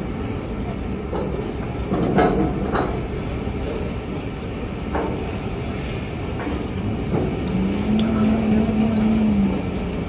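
Strong wind rushing over the microphone with a steady low rumble, broken by a few sharp metal clanks about two seconds in and again at five seconds from steel fittings being handled on a steel girder. A steady low hum sounds for about two seconds near the end.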